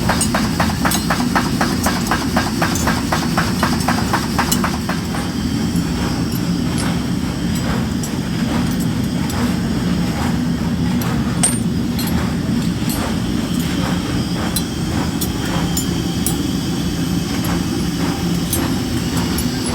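Workshop machinery running with a steady hum and sharp metal knocks, rapid and even at about five a second for the first five seconds, then sparser and irregular.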